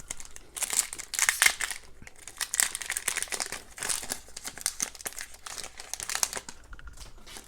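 Hockey card pack wrapper being torn open and crinkled in the hands: a run of irregular crackling rustles, busiest in the first half.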